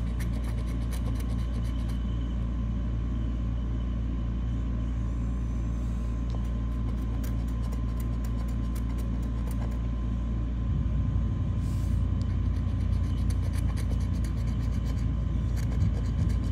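Scratch-off lottery ticket being scratched with a small tool in patches of short, rasping strokes. Under it is a steady low rumble that grows louder and more uneven about ten seconds in.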